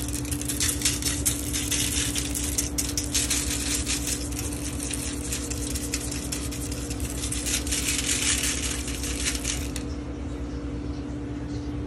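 Fine Himalayan pink salt being shaken from a shaker, the grains rattling and scattering as a dense crackle of tiny clicks onto aluminium foil, easing off about ten seconds in. A steady low hum runs underneath.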